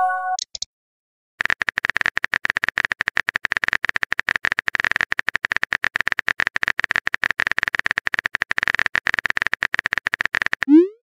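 A chat-app notification chime ends, then after a short pause comes about nine seconds of rapid phone-keyboard typing clicks. Near the end a quick rising swoop sounds as the message is sent.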